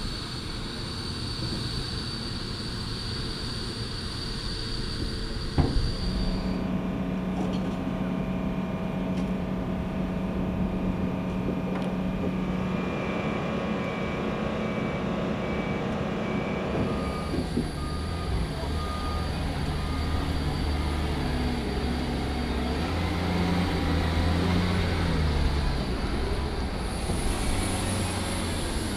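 Steady machinery noise around a large cargo aircraft on the ground: a high whine, then a steady low hum with a short run of beeps, and a single sharp knock. In the last part a heavy forklift's diesel engine runs, rising and falling, as it drives up the loading ramp.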